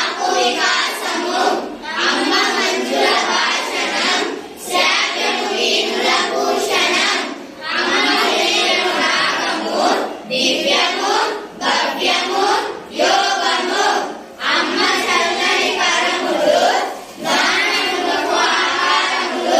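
A group of young children singing a Telugu action song together in unison, in phrases with short breaks between them.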